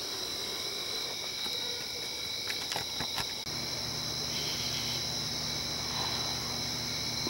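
Crickets and other night insects calling steadily in high, continuous tones. A few faint clicks come about three seconds in, and a low hum joins shortly after.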